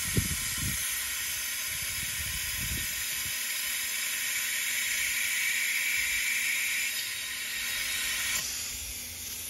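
Compressed air hissing steadily through a venturi coolant vacuum-fill tool as it pulls vacuum on an engine's cooling system before refilling. There are a few dull thumps in the first three seconds, and the hiss eases a little near the end.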